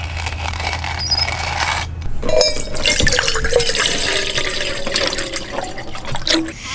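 Water pouring from a spout into an open stainless steel coffee pot, starting about two seconds in and running steadily almost to the end.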